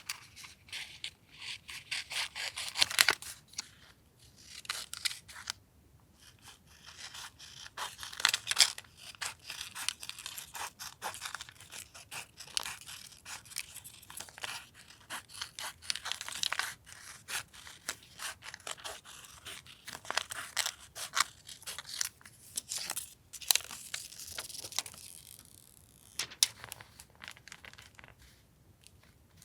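Paper crafting sounds: paper being torn, cut with scissors and rustled in quick, irregular crackles and rasps, thinning out near the end.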